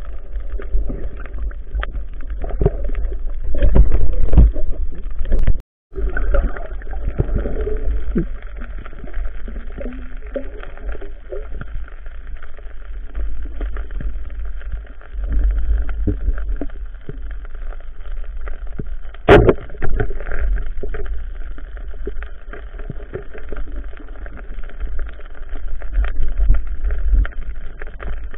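Underwater camera audio: a steady, muffled low rumble of water moving against the camera, with scattered knocks and clicks and one sharp click about two-thirds of the way through. The sound cuts out briefly just before six seconds in.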